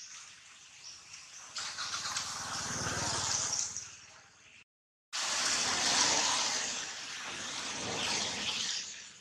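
A motor vehicle's engine running close by, swelling to a peak about three seconds in. The sound cuts out abruptly for half a second, then a loud rushing noise returns and fades near the end.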